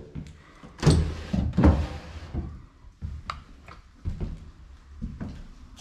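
Wooden knocks and taps from handling a built-in wooden cabinet and closet door while stepping across a hardwood floor: two loud knocks a little under a second apart, about a second in, then lighter taps and clicks.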